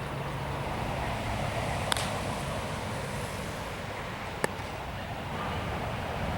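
Steady wind rushing on the microphone, with two sharp cracks about two and a half seconds apart: a baseball striking bat or glove.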